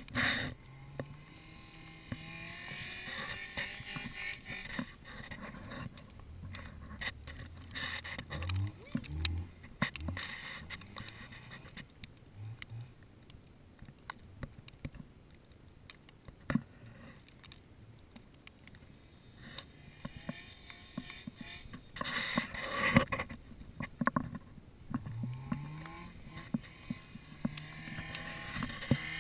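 A vehicle engine running, its revs rising now and then, with scattered knocks and clicks.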